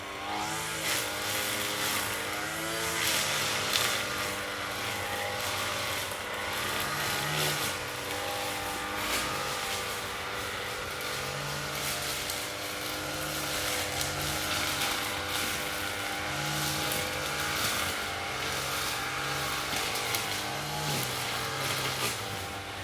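Lawn mower engine running, its note gliding up and wavering over the first few seconds, then holding fairly steady with small rises and falls.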